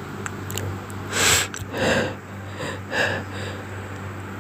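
A person who is sick sniffling and drawing sharp breaths through the nose, three times in about two seconds, the first the loudest, between sneezes.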